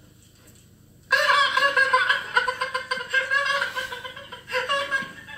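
A man's high-pitched, cackling laughter, starting about a second in and going on in short runs, played from a film soundtrack through a TV's speakers.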